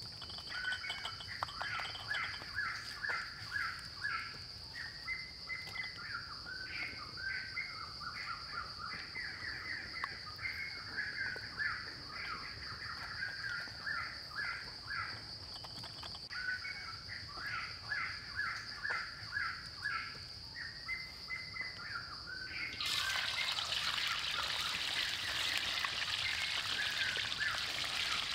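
Birds chirping over and over above a steady high whine. About 23 seconds in the whine stops and loud sizzling starts: a whole baby crocodile frying in hot oil in a wok.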